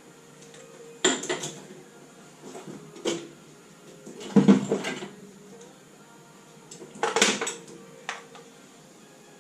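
Metal tools and parts clanking as they are handled: about five separate clanks and rattles, the loudest a heavier knock about halfway through.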